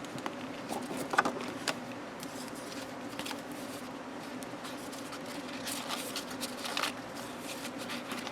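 Paper and cards being handled out of a gift box: scattered soft rustles and light taps over a steady low hum.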